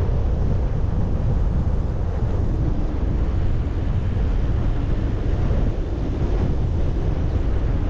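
Wind noise on a GoPro action camera's microphone while cycling: a loud, steady low rumble.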